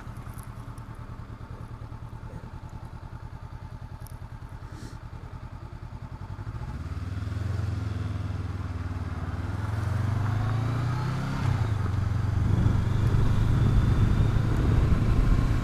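Honda CB500X's parallel-twin engine ticking over at low revs, then pulling away: the note climbs, drops once as it shifts up a gear about two-thirds of the way in, and carries on louder.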